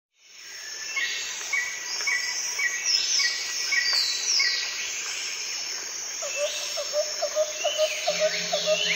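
Birdsong fading in over the first second: a short chirp repeated about twice a second, many quick sliding calls, and from about six seconds a lower call repeated about twice a second. A low steady tone joins near the end.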